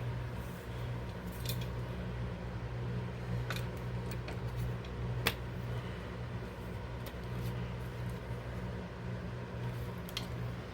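A handful of light, isolated clicks and taps as a Vetterli rifle's barreled action is handled and set down into its wooden stock, over a steady low hum.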